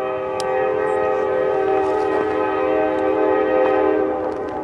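Air horn of a CSX freight train's lead locomotive, a GE C40-8, sounding one long blast, a chord of several notes that fades out near the end, over the low rumble of the train.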